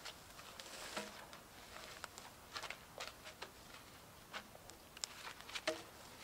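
Footsteps and shuffling in dry leaf litter and twigs on a forest floor, with scattered light crackles, as a cut log is lifted onto a shoulder.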